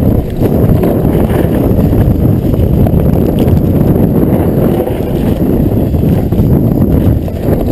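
Wind buffeting the microphone of a camera on a moving mountain bike, with the bike rattling and jolting over rough trail.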